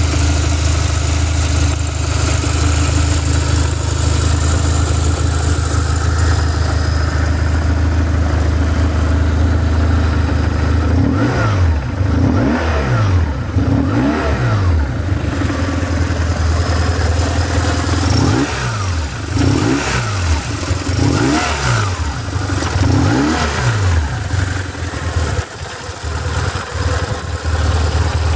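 BMW R1150R's boxer twin engine idling steadily, then revved in quick throttle blips, each rising and dropping back to idle: a run of about four blips a little before halfway, and another run of about four later on.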